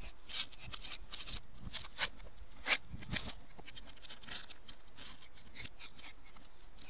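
A chihuahua's and a tabby kitten's claws and paws scrabbling on a plastic folding stool and wooden decking as they play-fight: a run of short scratchy clicks and scrapes, bunched in the first four seconds or so, the sharpest a little under three seconds in.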